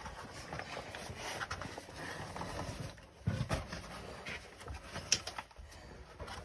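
Scuffing and scraping of shoes, hands and clothing against sandstone walls as people squeeze through a narrow slot canyon, with scattered light knocks and a heavier thump about three seconds in.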